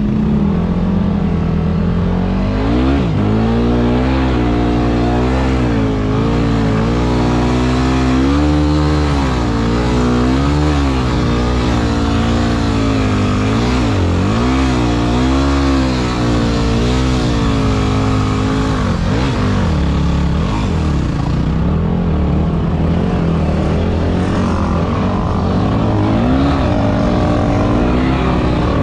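Off-road vehicle engine working in soft dune sand, revs rising and falling over and over. It settles to a steadier pitch about two-thirds of the way through.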